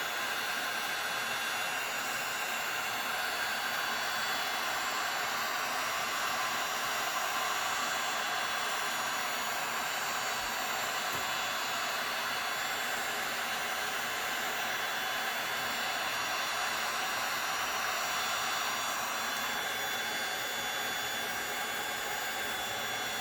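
Heat gun with a long thin nozzle running steadily on its low setting, a continuous whooshing blow of hot air used to push wet epoxy resin into a wave edge.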